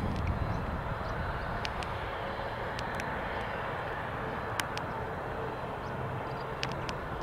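Jet aircraft engines running at a distance: a steady rumble with a faint high whine, with a few light clicks scattered through it.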